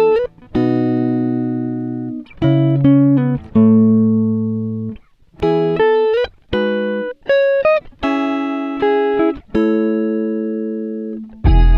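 Background music: a plucked-string melody of single ringing notes that start sharply and fade, played in short phrases with brief pauses between them.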